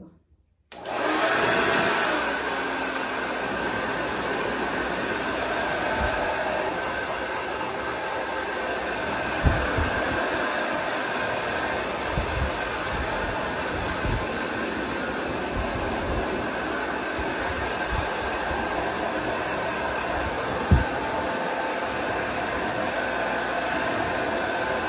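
Handheld hair dryer switching on about a second in and then running steadily as it blows on a wet dog's coat, with a few brief low bumps along the way.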